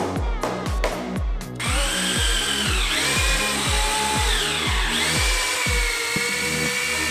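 Cordless drill-driver driving screws into a timber frame: its motor whine starts about a second and a half in, sagging in pitch twice under load and picking back up, after a run of quick taps. Background music with a steady beat plays throughout.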